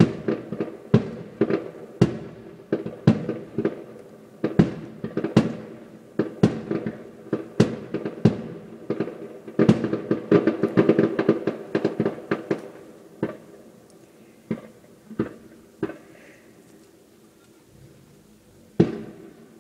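Fireworks display: aerial shells bursting one after another in quick succession, sharp bangs with rumbling echoes trailing between them. The bangs thin out in the last third, with one more loud bang near the end.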